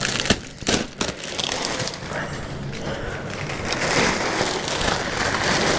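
Packaging being cut open with a utility razor blade and pulled off a new Grizzly G0815 planer: a few sharp snaps in the first second, then continuous crumpling and scraping.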